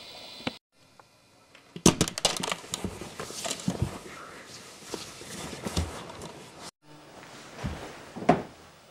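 Close rustling and handling noise broken by many sharp clicks and knocks, with one loud thump near the end.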